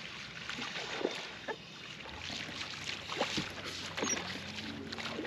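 A hooked small largemouth bass splashing at the water's surface beside the boat as it is reeled in, in a run of short irregular splashes. A low steady hum begins about two seconds in.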